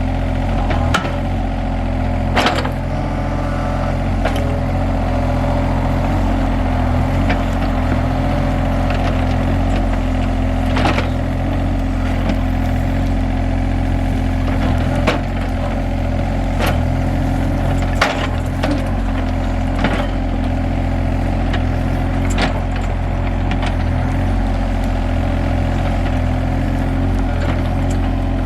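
John Deere 35G mini excavator's diesel engine running steadily, with sharp clanks and knocks every second or few from the machine working in the mud.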